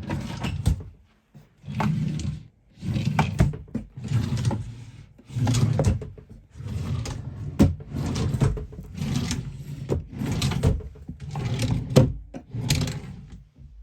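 Repeated scraping and knocking of the chest's wooden parts being worked, roughly once a second, each stroke a short scrape ending in a sharp click.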